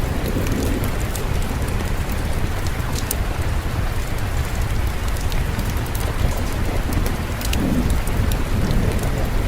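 Steady rain with a low, continuous rumble of distant thunder and scattered sharp fireplace crackles.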